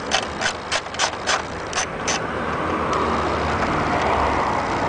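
A ratchet with an 8 mm socket clicks as it backs out a headlight mounting bolt, about three clicks a second. About two seconds in, the clicks give way to a steady rasping noise.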